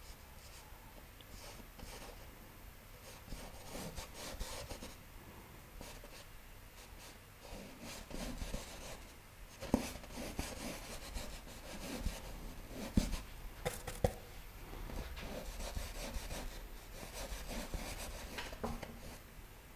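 Paintbrush rubbing and scratching over stretched canvas in short strokes, with a few sharp taps around the middle.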